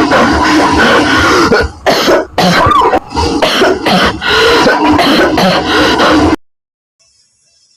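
Loud, harsh coughing and throat-clearing, repeated in quick succession, that cuts off suddenly about six and a half seconds in.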